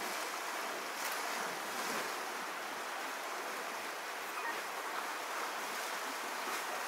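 Steady rushing of a shallow, fast-flowing river running over stones, with faint splashing as a grizzly bear wades through it.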